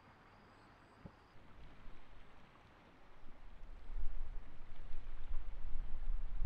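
Wind buffeting the microphone: an uneven low rumble that builds up from about a second and a half in and grows strong after three and a half seconds, with a single click about a second in.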